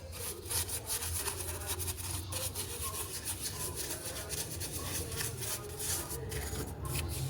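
Scrubbing a grimy car gearbox casing with aluminium cleaner: a dense, irregular run of rubbing, scratching strokes.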